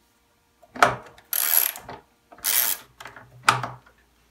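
Ratchet socket wrench loosening a washing machine counterweight bolt: two runs of rapid ratchet clicking, each about half a second, with a sharp knock before the first run and another near the end.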